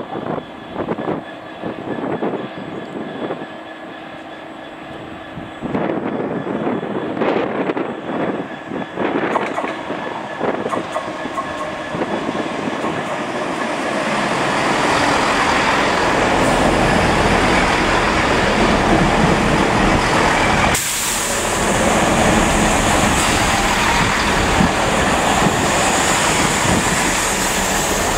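Great Western Railway Class 165 diesel multiple unit running into the platform. Its noise builds from about halfway through and stays loud as the coaches pass close by, and a sudden hiss joins about three-quarters of the way through. Scattered knocks and gusts come before the train arrives.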